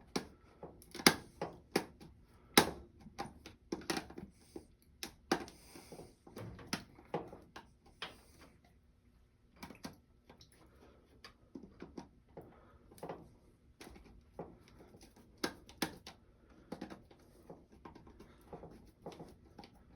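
Irregular small clicks and taps of a skinny flathead screwdriver working the terminal screws on a soft serve machine's beater motor overload, loosening them to free it from the contactor.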